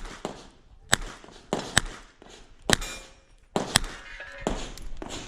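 Smith & Wesson 929 9mm revolver being fired during a practical-shooting stage: about five single shots, roughly a second apart.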